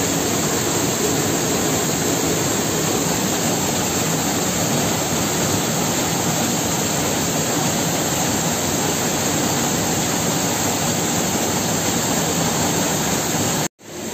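Steady, loud rushing of a waterfall pouring into a pool, cutting off suddenly near the end.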